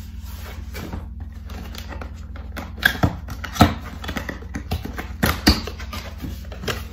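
Cardboard box being opened by hand: flaps pulled back and the carton handled, with a run of sharp scrapes and taps about three seconds in and again a little past five seconds.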